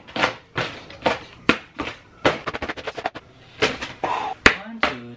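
An open hand slapping a creased sheet of drawing paper held up in the other hand: a quick string of sharp slaps, about two or three a second, with the paper rattling between them.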